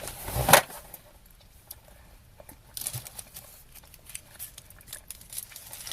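Crinkly cellophane sweet wrapper being handled and picked at: a run of small sharp rustles and clicks from a little under three seconds in. The loudest event is a brief rushing thump about half a second in.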